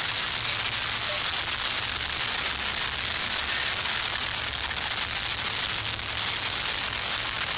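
Steady outdoor hiss with irregular low rumbling gusts: wind on the microphone over small camp stove fires burning.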